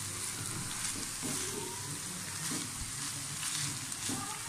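Shredded cabbage, onion, carrot and capsicum sizzling in a pan while a silicone spatula stirs and turns them, with soft irregular scraping strokes over a steady hiss.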